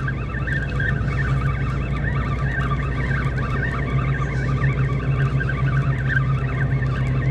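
A spinning reel being cranked steadily, its dry gears giving a rough, squeaky grinding: the reel needs grease. A steady low hum runs underneath.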